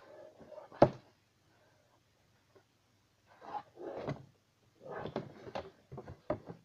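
A cardboard mystery box in clear plastic packaging handled and turned over: one sharp knock about a second in, then two stretches of plastic crinkling and rubbing, with a few small knocks near the end.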